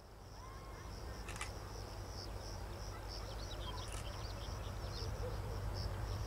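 Crickets trilling in a steady pulsing high chirr over the low rumble of an approaching HŽPP EMD GT22HW-2 diesel locomotive, the rumble growing steadily louder. A few bird chirps come in about midway.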